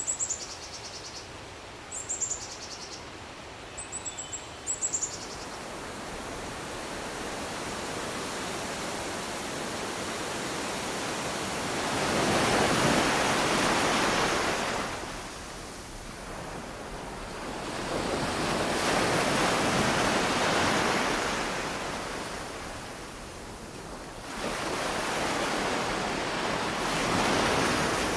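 Ocean surf washing in, with three swells rising and fading about seven seconds apart. A few short, high, falling bird chirps come in the first few seconds.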